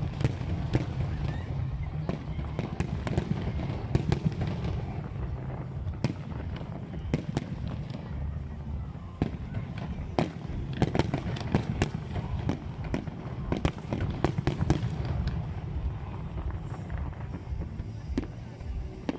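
Fireworks display: a continuous, irregular run of sharp bangs from shells bursting, sometimes several a second, over a steady low background.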